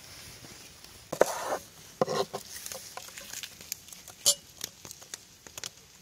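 Light clicks, clinks and knocks of things being handled, with two brief scratchy noises about one and two seconds in and a sharper click past four seconds.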